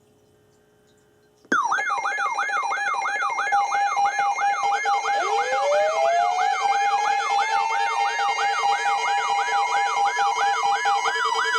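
Several NOAA weather alert radios sounding their alarms together for a severe thunderstorm warning, starting suddenly about a second and a half in. They make a fast warbling siren tone about two cycles a second, a steady pulsed beep, and, from about four seconds in, a siren tone that winds up in pitch.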